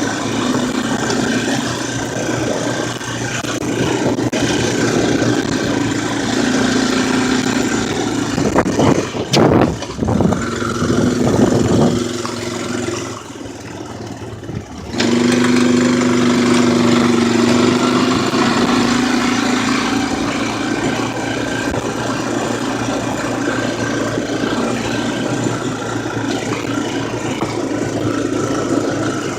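4x4 ATV engine running while being ridden, its pitch rising and falling with the throttle. There is a loud rough patch about a third of the way in, then a short spell near idle just before halfway, after which it revs back up and runs on steadily.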